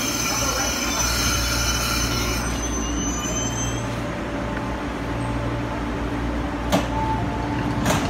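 East Rail Line electric train braking to a stop at a platform, with a steady low rumble and high wheel-and-brake squeal that dies away about four seconds in. Two sharp clunks follow near the end as the doors open.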